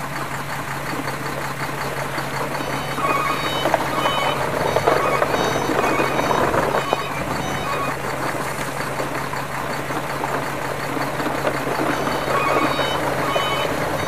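A string of plastic toy trucks, led by a toy bus, rolling and rattling over dirt ground as it is pulled along on a string. A faint electronic tune of short beeping notes plays over it.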